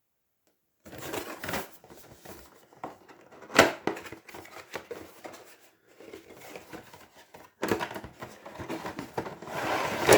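Plastic packaging and miniature sprues being handled: rustling and crinkling with irregular clacks. A sharp hard knock about three and a half seconds in is the loudest sound.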